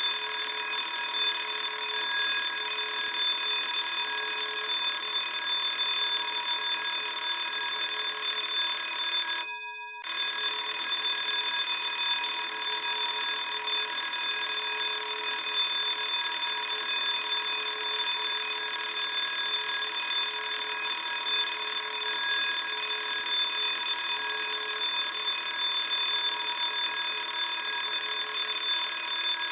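Classic school bell ringing steadily, cutting out briefly about ten seconds in and then ringing on.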